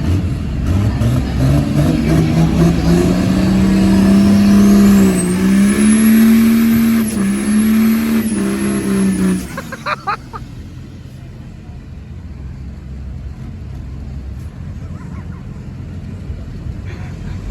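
Diesel pulling truck's engine revving up hard under load while dragging a sled, with a rising turbo whistle over it. The pitch holds with two brief dips, then drops off about nine and a half seconds in as the pull ends short. Lower, steady crowd and background noise follows.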